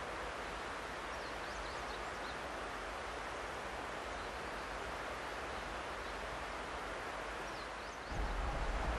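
Steady rural outdoor background hiss with a few short, high bird chirps. Near the end a louder low rumble cuts in: a JR KiHa 120 diesel railcar approaching.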